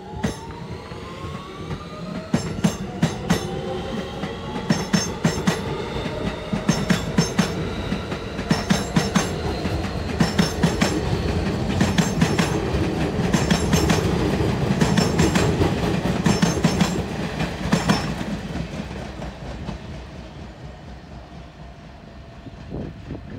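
R160B subway train with Siemens propulsion accelerating out of the station: its traction motors give a rising, stepped whine while the wheels clatter in clusters of clicks over rail joints. The clicks come every second or two on a loud rumble, then stop about 18 s in as the train pulls away and the rumble fades.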